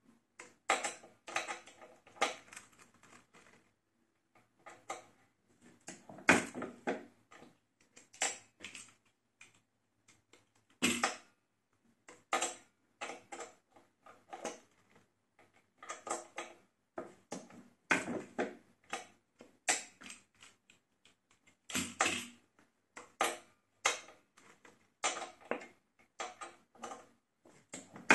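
A slug mold being handled and worked: an irregular run of sharp clicks and knocks, one to several a second, with a few louder strikes.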